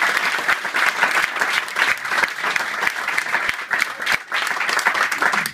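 A small group of people applauding, a dense and steady patter of hand claps.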